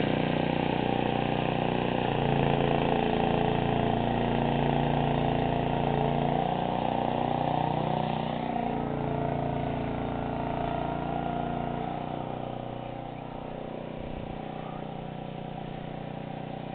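An engine running, its pitch shifting up and down several times, then growing quieter over the last few seconds.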